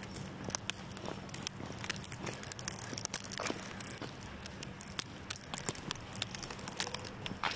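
Footsteps on a snowy path, with irregular crackling ticks several times a second.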